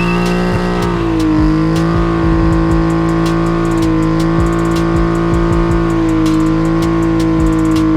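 BMW E36 M3's straight-six engine held at high, steady revs during a burnout, its pitch dipping briefly about a second in and again near six seconds.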